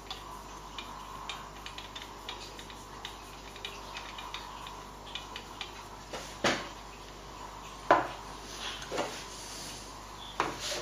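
Ruixin Pro II knife sharpening jig being handled, its hard parts clinking and scraping: faint light ticks at first, then a few separate knocks about six, eight, nine and ten seconds in, the loudest near eight seconds.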